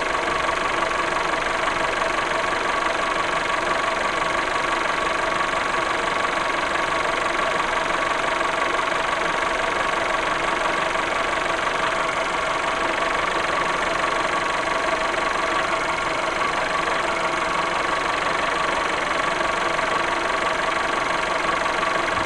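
VW Golf VI 1.4 TSI (CAXA) four-cylinder turbo petrol engine idling steadily, with a few steady high tones running over the engine sound.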